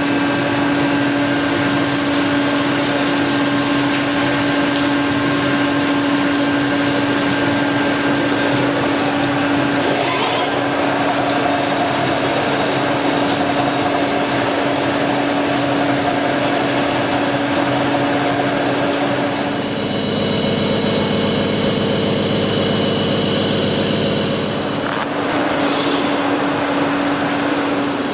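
Pama horizontal boring and milling machine running as its spindle tool machines a large valve body: a steady mechanical hum with a whine. About two-thirds of the way through, its tones change for several seconds, then settle back near the end.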